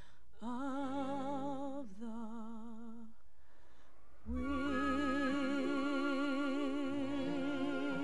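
A woman's singing voice holds long final notes with wide vibrato over music. It dips briefly about three seconds in, then a louder last note swells with the accompaniment from about four seconds in.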